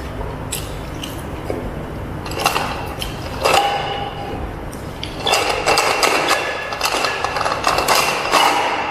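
Clinks of an insulated metal tumbler as it is picked up, then close-up drinking and swallowing sounds from it, louder over the last few seconds.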